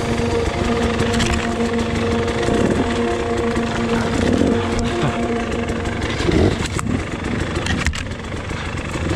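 Two-stroke KTM 300 dirt bike engine running under the rider, held steady at first and then revving up and down as the bike climbs the rough trail, with a second dirt bike close ahead. A couple of sharp knocks late on.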